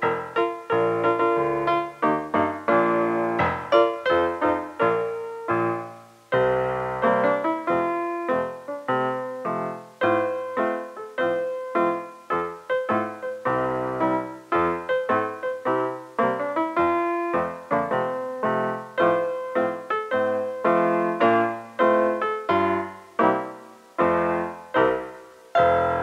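Background solo piano music: a steady run of struck notes, each fading after it is played, with a short pause about six seconds in.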